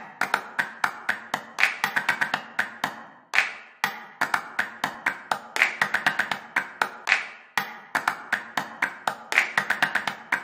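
Light percussive background music: a quick, steady run of sharp tapped notes that ring out briefly, with a stronger accent every second or two.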